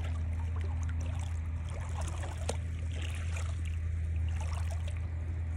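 Shallow lake water lapping and trickling at the edge, with many small splashes and drips, over a steady low hum.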